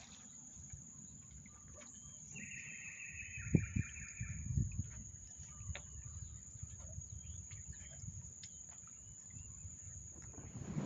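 A bird gives a rapid chirping trill from about two seconds in to just before five seconds, over low rumbling wind-and-water noise with a couple of soft thumps and a steady thin high-pitched whine.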